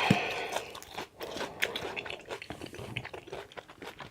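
Close-up open-mouth chewing of a salad with lettuce, bacon and chicken: a loud crunchy bite right at the start, then wet smacking and crunching.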